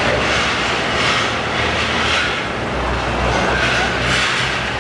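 A large diesel bus engine idling with a steady low hum, under a broad wash of crowd and station noise.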